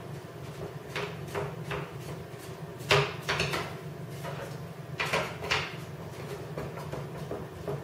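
Aluminum wing rib flange being bent with a hand tool to take the bow out of the rib: a series of separate clicks and clacks of metal on metal, the loudest about three seconds in and two more around five seconds.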